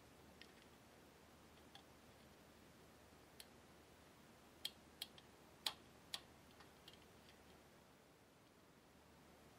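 Faint scattered clicks and light taps from hands and a screwdriver working the enamelled metal housing of an old Stube scale apart. A quick cluster of sharper clicks comes about five to six seconds in, over low background hiss.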